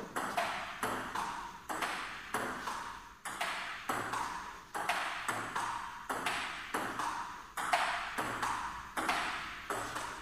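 Table tennis rally: the ball clicking off the table and the bats, about two hits a second, one bat faced with Yasaka Trick Anti antispin rubber. Each click rings briefly in the large hall.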